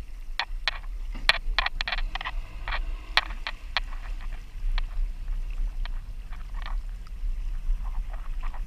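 Irregular sharp clicks and taps from a conventional fishing reel being cranked and a heavily bent rod being worked against a hooked fish. They come several a second at first and more sparsely later, over a low steady rumble of wind and boat.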